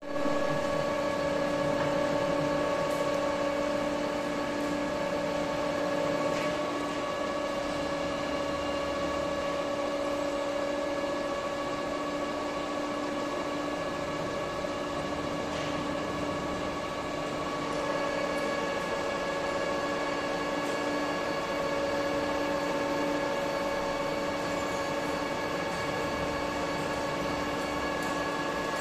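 Steady mechanical hum of workshop machinery: several even tones over a hiss, one of them fading briefly and returning about two-thirds of the way through, with a few faint clicks.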